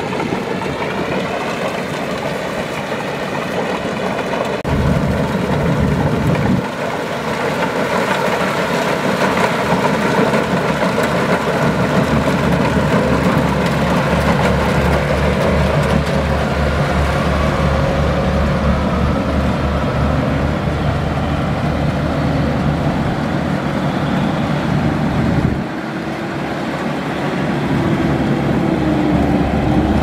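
Kubota DC-95 GM combine harvester running steadily with its diesel engine and machinery going. The low engine sound swells about five seconds in and eases about four seconds before the end.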